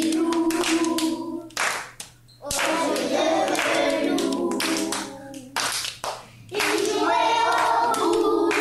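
A class of young children singing a French nursery rhyme about the wolf together, clapping their hands along. The song comes in three sung phrases with short pauses between them.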